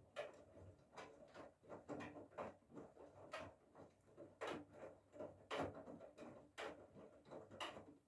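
Whirlpool FSCR90425 front-loading washing machine tumbling its wet load during a cotton 40 °C wash: clothes dropping and water sloshing in the turning drum, an irregular run of soft splashes and thuds about two a second. The drum starts turning at once and stops near the end.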